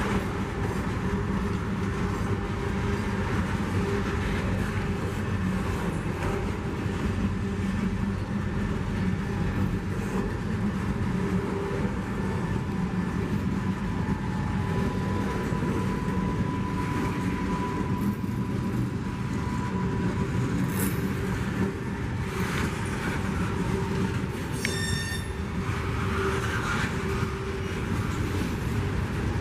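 Freight train's boxcars rolling past, a steady rumble of steel wheels on rail. A faint wheel squeal is held for a few seconds midway, and a brief, higher squeal comes near the end.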